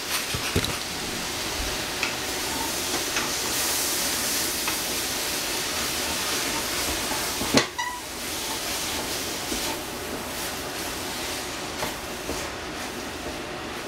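Vegetables cooking in a pan on the stove, sizzling and steaming with a steady hiss. A sharp knock comes about seven and a half seconds in.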